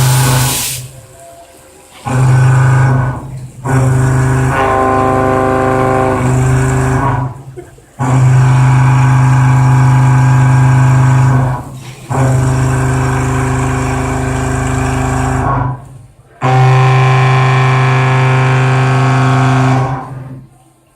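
CNC milling cutter cutting metal in repeated passes: five loud bursts of a steady pitched hum with many overtones, each lasting about two to four seconds, with short breaks between them.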